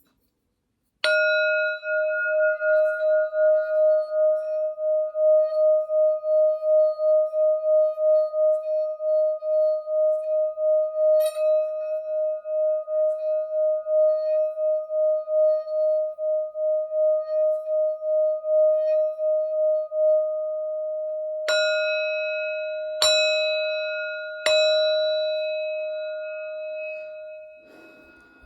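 Singing bowl struck once and then ringing with one steady tone that swells and fades about twice a second. Near the end it is struck three more times, about a second and a half apart, and left to ring down.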